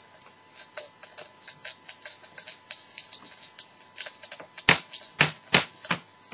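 Irregular clicking and crackling from a homemade radio preamp-and-amplifier circuit and its small loudspeaker as the wiring on the perfboard is prodded, the crackle of loose connections, over a faint steady tone. Three loud sharp pops come close together about a second and a half before the end.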